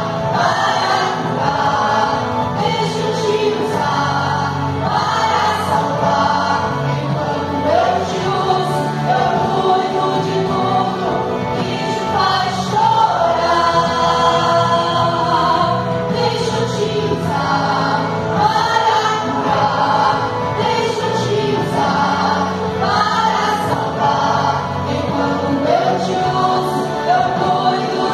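Vocal trio of soprano, contralto and tenor singing a gospel song together into handheld microphones over a sound system, the voices in parts.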